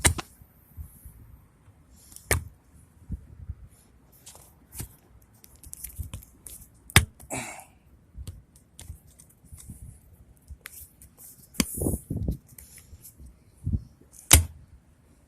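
A hand tool clicking and scraping on a screw lodged in a tire as it is gripped and twisted out, with a few sharp clicks and knocks scattered among quiet scraping.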